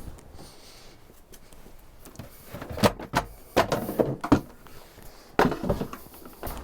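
Irregular knocks and clatters of wood being handled, in a few clusters, the loudest sharp knocks coming a little under halfway through and again near the end.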